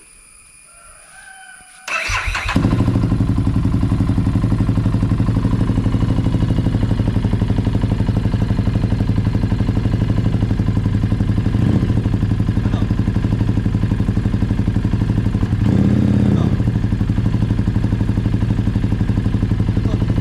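Harley-Davidson Street 750's V-twin engine cranked on the starter about two seconds in, catching at once and idling with a fast, even beat, missing now and then: the misfire it has developed, which the spark-plug trouble is suspected of causing.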